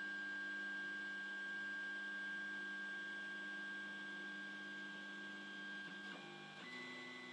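Creality Ender 3 3D printer's stepper motors whining in a faint steady tone as the printer homes its axes. Near the end the pitch changes twice as a different axis moves.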